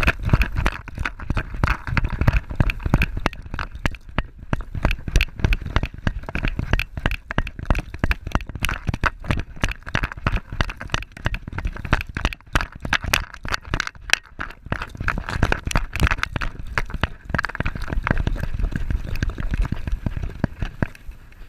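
Action camera strapped to a running dog's harness, jolting with every bound: rapid, irregular knocks and rattles of the camera mount and harness, over wind buffeting the microphone. It eases just at the end as the dog slows.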